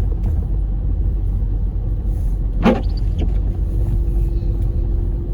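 Steady low rumble of a car driving on a snow-covered road, heard from inside the cabin, with one brief sharp sound about two and a half seconds in.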